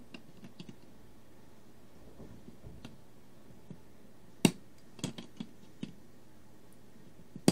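Plastic Lego pieces clicking and knocking as they are handled and fitted onto a small Lego truck: a sharp click about four and a half seconds in, a few lighter clicks just after, and another sharp click near the end.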